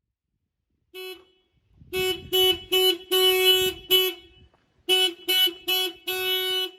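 Mini siren driven by a car alarm, sounding a steady-pitched tone in the alarm's on-off pattern. A short beep comes about a second in, then quick beeps mixed with longer blasts, a brief pause, and another run of beeps ending in a longer blast.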